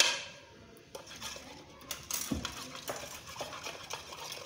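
Metal spoon stirring tamarind paste and water in a bowl, clinking and scraping against the bowl's sides in many small taps, with a dull knock about two seconds in.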